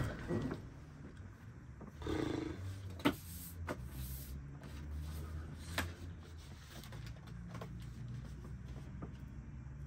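Soft handling noises as a man sits on a bed and picks up paper: a few sharp clicks or knocks and a longer rustle about two seconds in, over a low steady hum.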